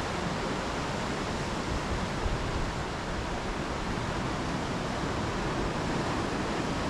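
Steady rushing noise of ocean surf on a rocky shore, mixed with wind buffeting the microphone.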